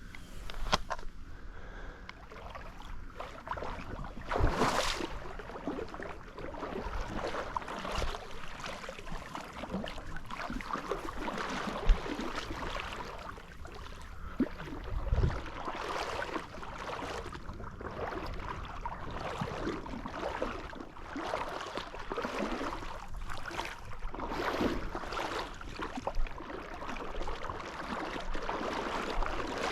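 Wading through shallow marsh water: irregular sloshing and splashing steps, with a single sharp knock about twelve seconds in.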